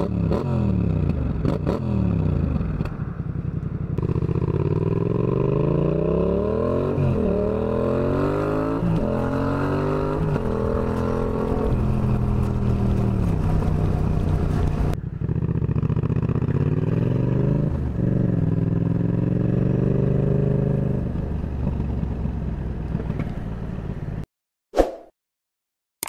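Yamaha XSR700's 689 cc parallel-twin engine heard from the saddle. It starts with a few throttle blips that fall back in pitch, then accelerates hard up through the gears twice, the pitch rising and dropping at each upshift, before settling at a steadier speed. The engine sound cuts off suddenly near the end.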